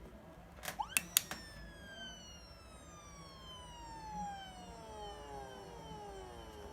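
Electronic police-style siren fitted to a motorbike, giving one wail: a few sharp clicks, a quick rise in pitch, then a long steady fall in pitch over about five seconds.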